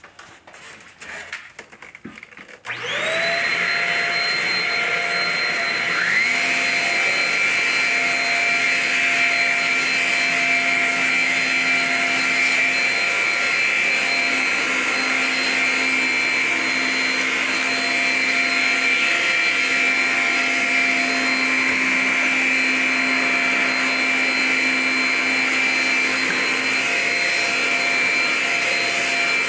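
Shark Rocket stick vacuum switched on about three seconds in, its motor whine rising to speed within a second. A further rising tone joins a few seconds later, and it then runs steadily.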